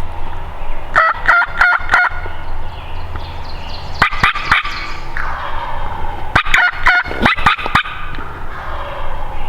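Wild turkey gobbler gobbling three times, each a loud rapid rattling gobble, about three seconds apart; the last one runs a little longer.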